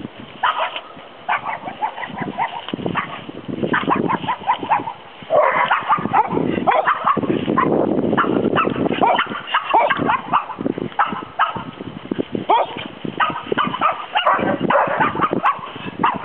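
A group of dogs barking, with many short barks in quick succession that come thicker from about five seconds in.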